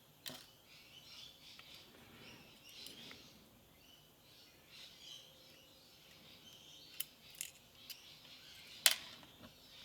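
A few small, sharp metal clicks and taps as the driver pins and springs are taken out of the bible of a Lockwood V7 pin tumbler lock during gutting, the loudest click near the end. Faint bird chirps run underneath.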